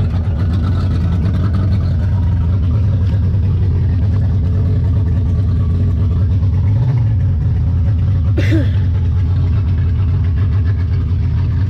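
A 225-horsepower outboard motor pushing an aluminum boat at speed: a loud, steady, deep drone that holds an even pitch throughout. A brief human voice cuts in once, about eight and a half seconds in.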